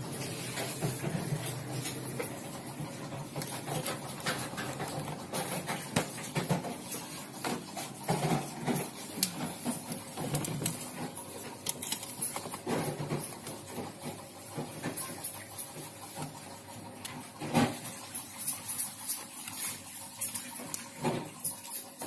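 Irregular clicks, knocks and rustles of things being handled inside a refrigerator, with steel bowls and containers knocking on the shelves.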